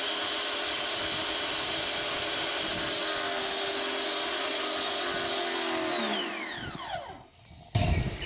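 SunJoe SPX3001 electric pressure washer's motor and pump running with a steady whine while pressurizing the system. About six seconds in it stops and winds down with a falling pitch, and an abrupt louder noise follows near the end.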